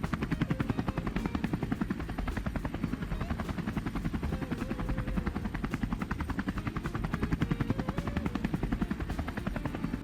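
Recorded helicopter sound playing back: a steady, rapid chop of rotor blades with a faint wavering whine over it.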